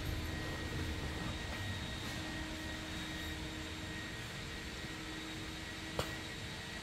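Steady low hum of workshop background noise with faint constant tones, and a single sharp click about six seconds in.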